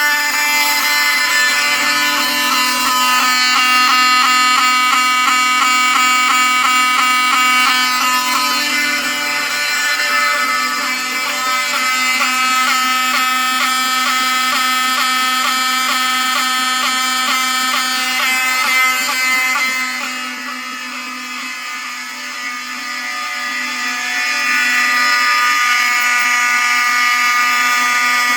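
Several vintage fire alarm horns, Wheelock 7000-series among them, sounding together in alarm after a BG8 pull station has been pulled. A harsh, steady, loud blare of many tones with a fast pulsing running through it; it dips in level for a couple of seconds about twenty seconds in, then comes back.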